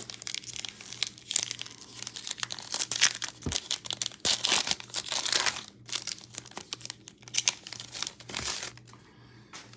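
Packaging of a trading-card blaster box being torn open and crumpled: a dense run of crinkling and tearing that dies away near the end.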